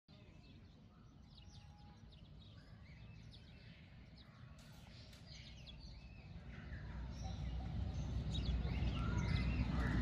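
Birds chirping in short, repeated notes over a low rumble that grows louder in the last few seconds.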